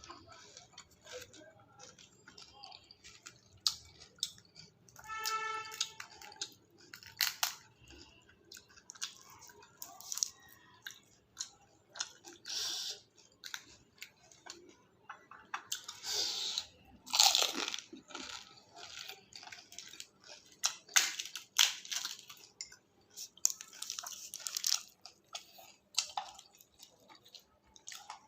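Golgappa (pani puri) being eaten close to the microphone: the crisp fried shells crunch between the teeth in irregular bites, followed by wet chewing. About five seconds in there is a brief pitched tone.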